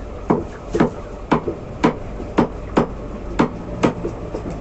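Butcher's cleaver chopping chicken on a chopping block: eight sharp strikes in an even rhythm, about two a second.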